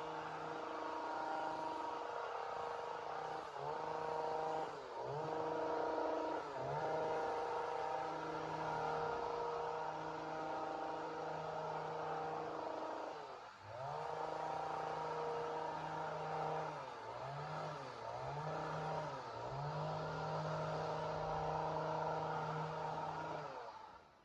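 Two-stroke chainsaw engine running at high revs, its pitch dipping briefly several times and picking back up, then cutting off near the end.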